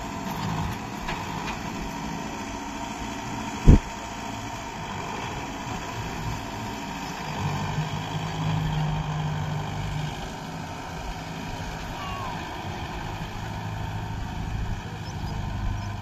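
Kubota MU5002 tractor's diesel engine running steadily as it pulls a cultivator through the soil. A single sharp low thump, the loudest thing heard, comes a little under four seconds in.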